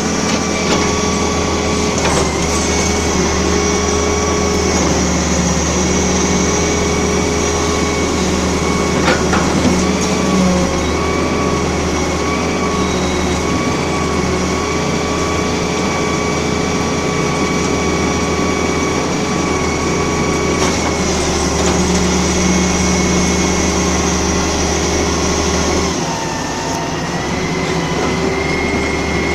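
Excavator running steadily under work, a constant diesel rumble with a high steady whine over it and a few short knocks. The low rumble drops away near the end while the whine carries on.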